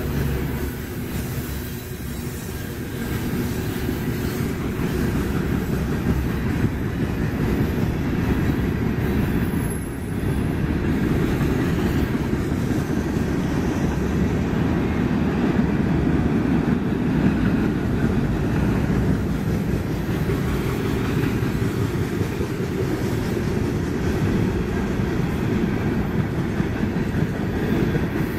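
Freight train cars rolling past at speed: covered hopper cars, then tank cars, their steel wheels making a steady heavy rumble and clatter on the rails.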